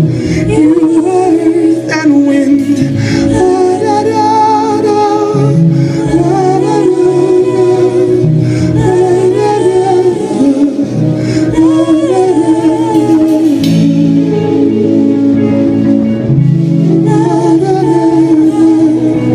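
A band playing live with a sung melody over electric guitar and keyboards, heard from the crowd.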